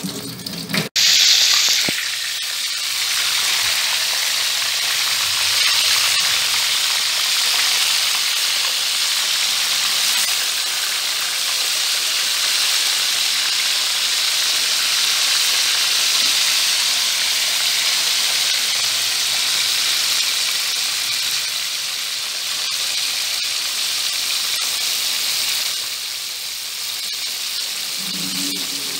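Whole seasoned catfish deep-frying in hot oil in a wok: a sudden loud surge of sizzling about a second in as the fish go into the oil, then a steady, even sizzle that eases slightly near the end.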